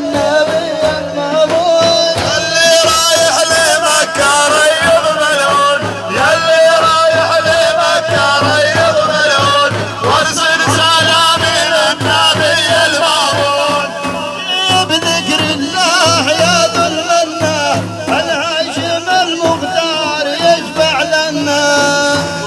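Middle Eastern devotional praise music: a wavering, ornamented melody over a steady drum beat.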